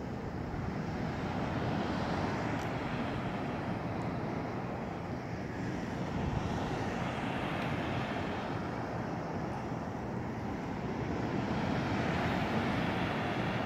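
Steady low drone and rush from a boat out on the water: an engine running under wind and wave noise on the microphone.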